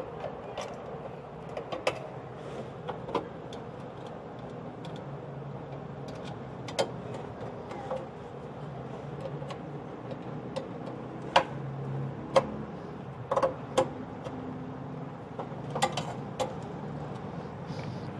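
Irregular sharp metal clicks and taps as a screwdriver tip works against a thin retaining pin in a gas stove's sheet-metal burner bracket, bending its end over so the pin cannot slip out. A low steady hum runs underneath.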